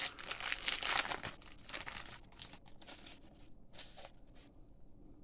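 Trading card booster pack wrapper crinkling, then cards handled with short rustles and flicks that thin out after about two seconds.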